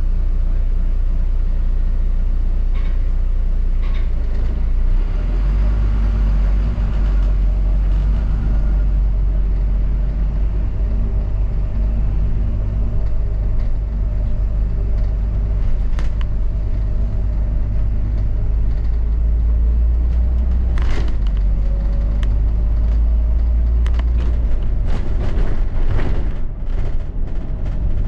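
London double-decker bus running, heard from inside the bus: a steady deep drone with a faint whine that rises slightly about twenty-two seconds in. There are a few sharp clicks, and a cluster of knocks and rattles near the end.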